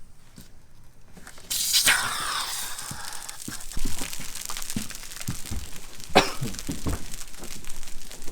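Vacuum-bagging film and fabric over a fresh epoxy lamination crackling and crinkling. It starts suddenly about a second and a half in, followed by many scattered sharp crackles.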